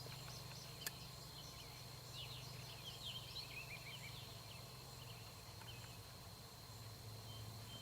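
Faint outdoor ambience: a bird chirping in short quick calls around two to four seconds in, over a steady high insect drone and a low hum, with one small click about a second in.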